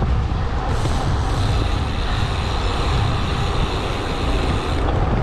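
Steady low rumble of wind buffeting the microphone, mixed with road noise, while riding a bicycle.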